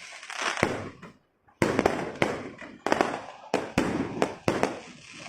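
Fireworks going off in quick succession: a string of sharp bangs, each trailing off in a crackle, with a brief lull about a second in.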